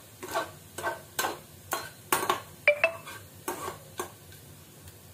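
Perforated steel spatula scraping and tapping against a kadhai while stirring cumin seeds frying in hot oil, about two strokes a second. Near the middle the spatula twice knocks the pan with a brief metallic ring. The stirring stops about four seconds in.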